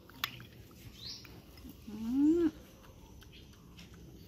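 Baby monkey giving one short call about two seconds in, rising and then falling in pitch. A faint spoon click on the bowl comes just before it.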